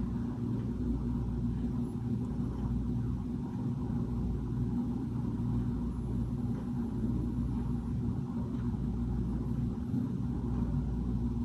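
A steady low rumble of room background noise, even throughout, with no distinct events.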